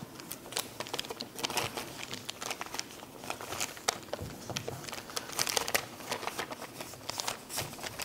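Two sheets of origami paper being creased and folded by hand into a frog base: irregular crisp crinkling and rustling, with small sharp ticks as fingers press the folds flat.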